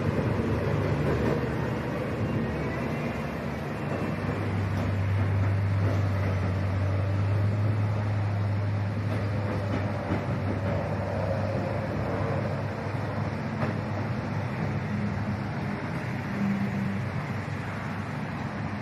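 Track-laying machine and its train of rail and sleeper wagons moving along the viaduct. There is a steady low engine drone that grows stronger for several seconds in the middle, over a constant rumble.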